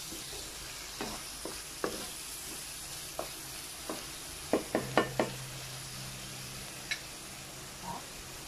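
Chicken pieces in a thick sauce sizzling in a frying pan while a wooden spatula stirs them, knocking against the pan now and then, with a quick cluster of louder knocks about halfway through.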